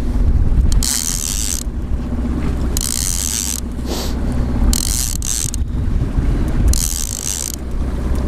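Line-counter trolling reel being cranked to bring in a hooked fish, its gears and pawl clicking in spells, over a steady low rumble.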